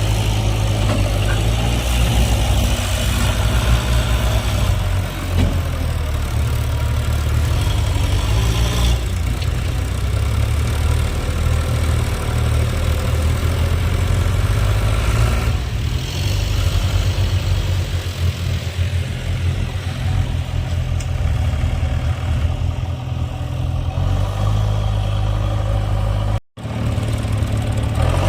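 Heavy diesel engine running steadily with a strong low hum, the sound cutting out for a split second near the end.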